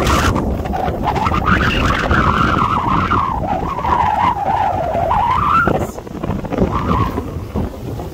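Small electric motor of an H126 mini RC boat whining, its pitch wandering up and down as it runs, then cutting off suddenly about five and a half seconds in. A steady low rumble runs underneath.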